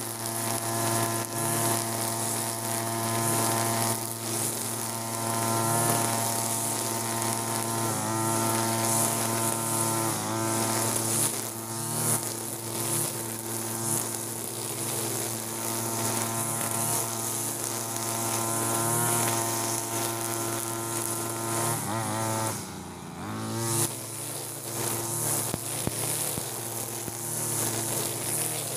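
Two-stroke brush cutter running at high throttle, its nylon-line trimmer head whipping through grass. The engine pitch sags briefly several times as the line takes load, and near the end it drops sharply for about a second before revving back up.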